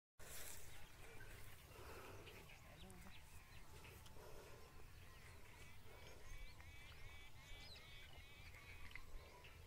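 Faint birds chirping, with quick runs of repeated high notes in the second half, over a steady low wind rumble.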